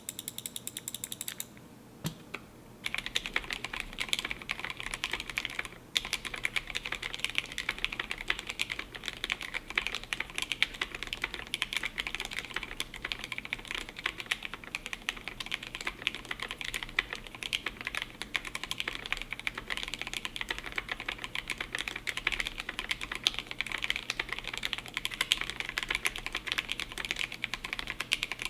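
Typing on a GMMK Pro mechanical keyboard with a polycarbonate plate and Gateron Black Ink V2 linear switches, lubed with 205g0 and filmed: a fast, continuous run of keystroke clacks starting about three seconds in. A low steady hum runs underneath.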